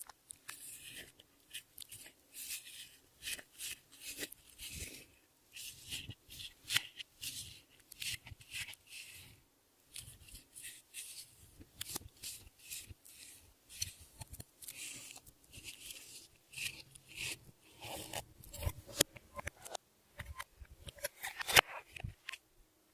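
Clear slime being worked by hand, giving an irregular run of sticky clicks and crackles, with a sharper click near the end.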